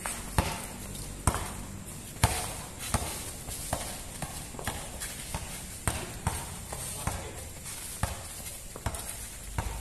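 Basketball bouncing on a concrete court, sharp slaps at uneven intervals as it is dribbled, mixed with players' sandals scuffing and slapping on the concrete.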